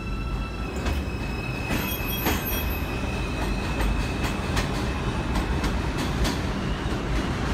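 R142-series subway train pulling out of the station and running away along the elevated track. A steady high tone from its propulsion fades after about three seconds, over a constant rumble with sharp clicks from the wheels on the rails.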